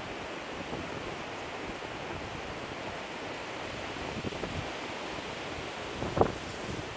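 Wind blowing through reedmace (cattails), a steady rustling hiss, with a sharp gust buffeting the microphone about six seconds in.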